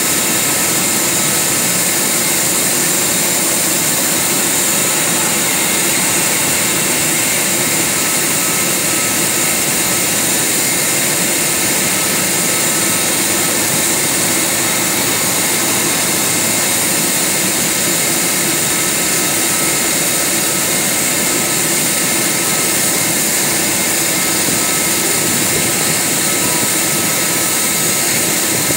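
Boeing 737 Business Jet's twin turbofan engines running steadily at low power: an even rushing hiss with a thin, steady high whine.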